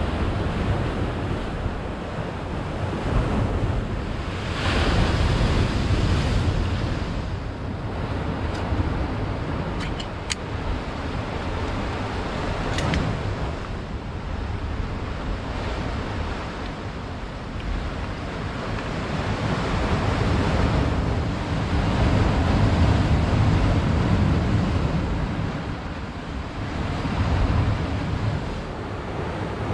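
Sea waves washing and breaking on the shore, swelling and fading every few seconds, with wind buffeting the microphone.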